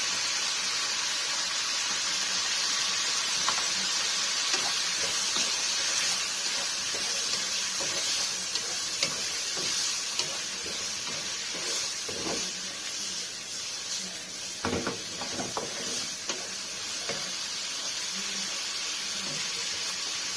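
A chicken and vegetable stir-fry sizzling steadily in a wok while a wooden spatula scrapes and knocks against the pan, with a few louder knocks a little past the middle.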